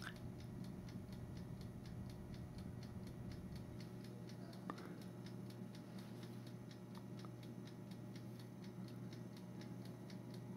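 Electric air fryer's mechanical dial timer ticking faintly and evenly, about four ticks a second, over a steady low hum.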